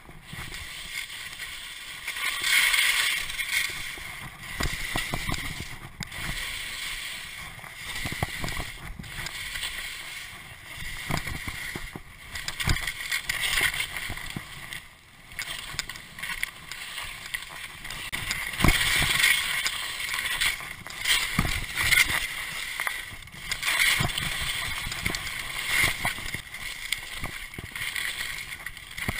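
Skis hissing through soft snow on a downhill run, the sound swelling with each turn every couple of seconds, with a few sharp knocks.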